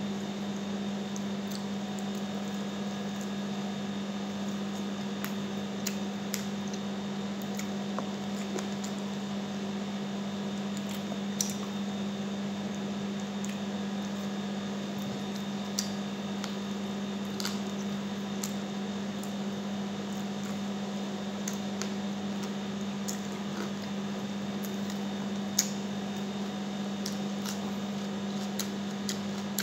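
Mouth-close eating sounds: chewing and smacking on chicken and rice eaten by hand, with a few sharp clicks, over a steady low hum.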